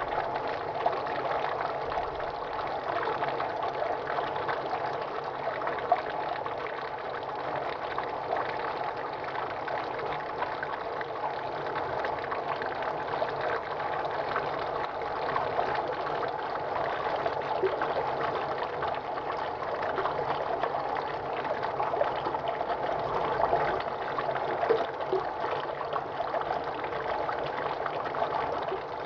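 Water running in a steady stream, a continuous splashing rush with fine crackle and no change in level.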